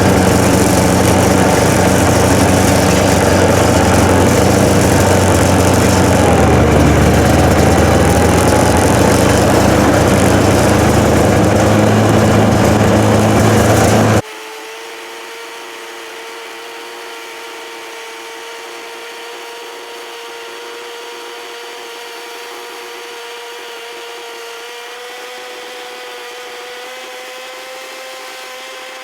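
A motor-driven power tool running loudly and steadily, its pitch dipping briefly about halfway through. It cuts off abruptly and a quieter, steady motor whine carries on in its place.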